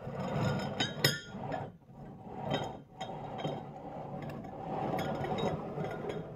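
Half-liter glasses of water being set down on a table one after another, with glass clinks and knocks amid handling noise; the sharpest clink is about a second in.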